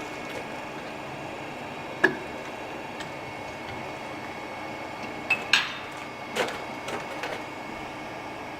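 A few sharp metallic clinks and knocks, like tools and engine parts being handled, over a steady hum; the loudest knock comes about two seconds in, and several more follow in a cluster past the middle.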